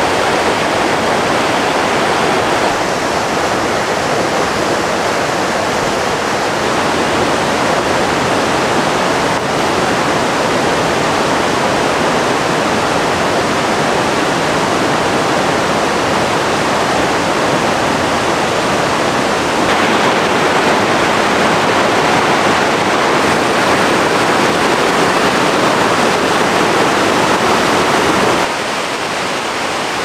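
Waterfall in a mountain valley rushing steadily with loud, even water noise. The level steps up or down slightly a few times.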